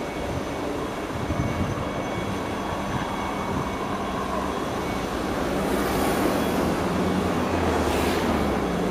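Helicopter hovering at a distance: a steady rotor and turbine drone with a faint whine over it, getting somewhat louder in the second half.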